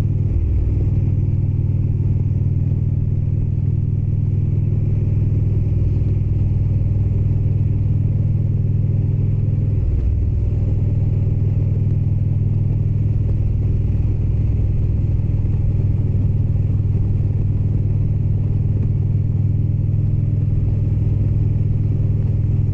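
Indian Springfield motorcycle's V-twin engine running steadily at cruising speed, a constant low rumble with a brief wobble about ten seconds in.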